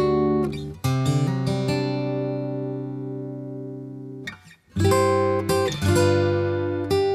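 Background music of plucked chords that ring and fade, with a short break about four and a half seconds in.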